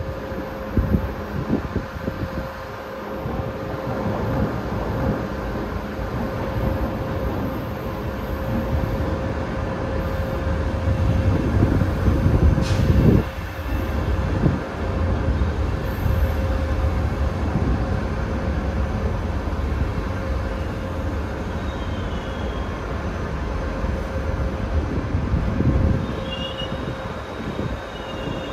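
ČD railjet of Siemens Viaggio Comfort coaches rolling into the station, pushed from the rear by a class 1216 Taurus electric locomotive. A low rumble of wheels on the rails runs with a steady hum, broken by one sharp click about halfway and a few faint short squeals later on.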